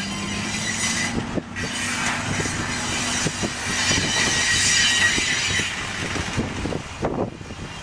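Railroad cars rolling past, wheels clicking over rail joints and squealing against the rails, loudest squeal about halfway through. A low diesel drone fades out over the first few seconds.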